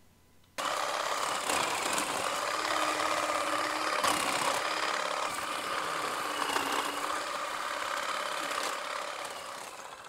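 A motor running steadily, with a faint wavering whine, that starts abruptly about half a second in and fades out near the end.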